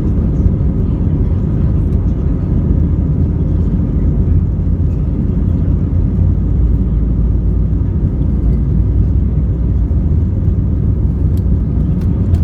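Airbus A320-200 jet engines running, a loud steady low rumble with no change in pitch.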